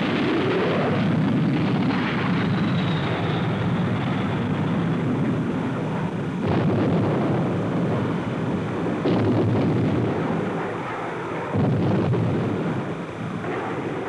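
Steady jet aircraft noise, then a string of heavy bomb explosions, the first about six and a half seconds in and more every two to three seconds after.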